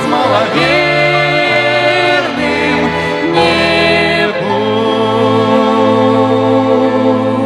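Closing bars of a church ensemble's worship song with violin: voices and instruments move through the last phrases, then settle on a long held final chord from about halfway through.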